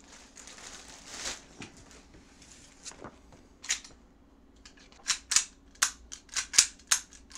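Plastic wrapping crinkles, then an airsoft pistol's action clicks rapidly as it is worked in the hands: a run of sharp clicks, about five a second, starting about five seconds in.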